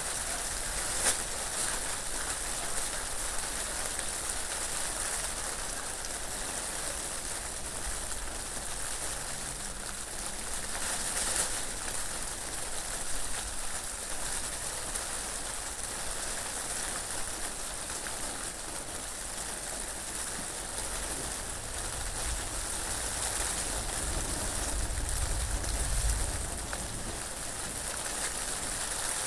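Steady rain falling, with wind; a low gust swells and fades near the end.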